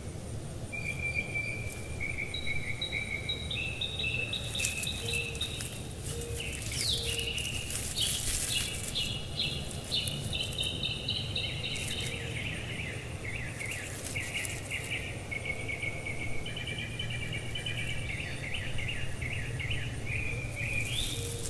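Outdoor ambience of continuous high chirping and trilling calls from insects and birds. Under it runs a steady low rumble, with scattered brief crackles.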